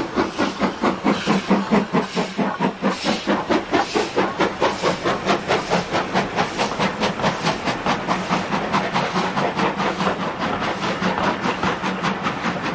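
Steam locomotive working hard, its exhaust beating in an even rhythm of about three beats a second that quickens slightly towards the end.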